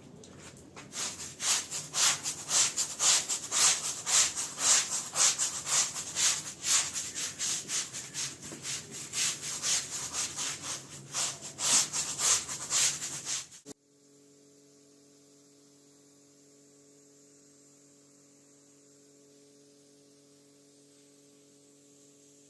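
Fast, even cleaning strokes rubbing across a rug, stopping abruptly about 14 seconds in. After that only a low, steady electrical hum remains.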